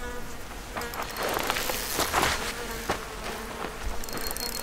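Steady buzzing of flying insects close by, with short runs of rapid ticking from a spinning reel as a hooked trout is reeled in, the longest run near the end.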